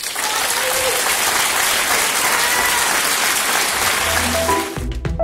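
Audience applauding loudly and steadily in a hall. Near the end, music with drum hits and bass notes starts up.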